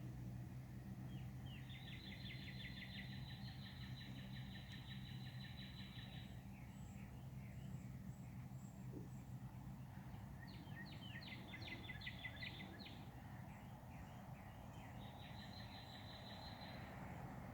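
Cicada calling in three bouts of rapid pulsed buzzing, each lasting a few seconds, over a steady low hum.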